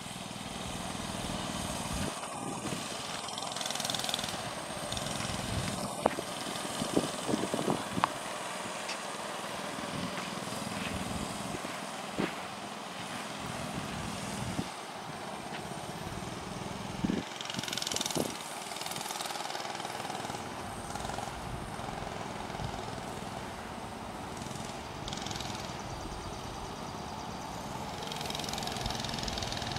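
Mini bike's small engine running steadily while it is ridden, with a few sharp knocks about six to eight seconds in.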